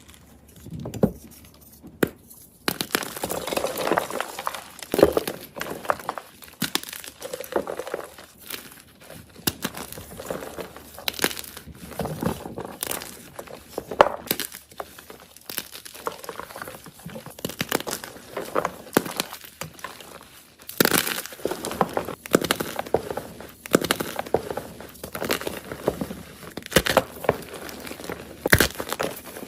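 A fresh block of soft gym chalk being crushed, crunching and crumbling. A few separate cracks come first, then continuous crunching from about three seconds in, with many sharp snaps.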